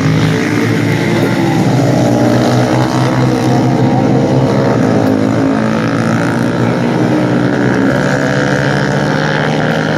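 An engine running steadily, its pitch wavering only slightly.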